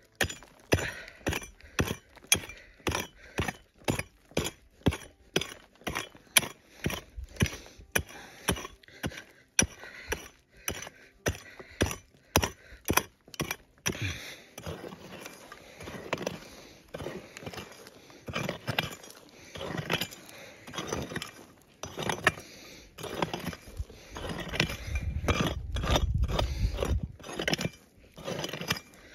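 A pick chopping into hard clay ground in quick, regular strikes, about two or three a second. About halfway through, the strikes give way to scraping of loose dirt and stones with scattered blows, and a low rumble a few seconds before the end.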